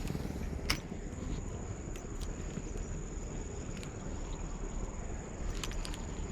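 Steady high-pitched insect drone over a low steady rumble, with a sharp click about a second in and a few more clicks near the end.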